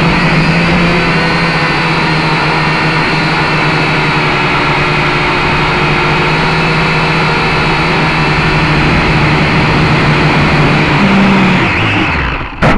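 Syma X5C quadcopter's small motors and propellers whining loudly and steadily, heard through its own onboard camera. Near the end the pitch drops and the sound falls away as the motors spin down.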